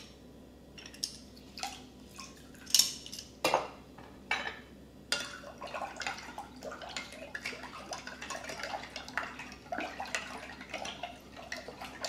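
A few sharp knocks about three to four and a half seconds in. Then a metal spoon stirs watermelon agua fresca in a glass bowl, with quick small clinks and scrapes of the spoon against the glass and the liquid swishing.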